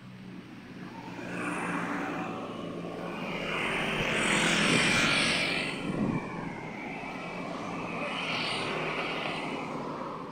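Road vehicles passing on a wet road: engine hum and tyre hiss swell to a loud peak about halfway, then a second, smaller swell near the end.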